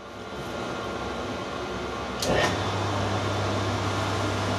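Metal lathe switched on about two seconds in with a click, then its motor and headstock gearbox running with a steady low hum.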